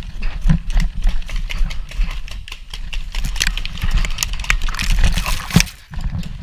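A person running across the ground: quick, uneven footsteps and knocks of carried gear over a steady low rumble.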